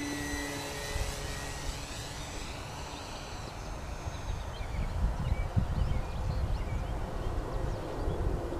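Electric motor of an E-Flite Timber RC airplane whining in flight, fading out within the first two seconds and a new whine coming in near the end, over gusty wind noise rumbling on the microphone.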